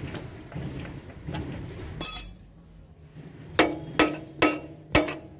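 Hammer blows on steel, about two a second, each with a short metallic ring: the three-leg puller is being struck to shock a seized magneto flywheel loose on an old Rajdoot motorcycle. The blows start about three and a half seconds in, after a short sharp burst of noise about two seconds in.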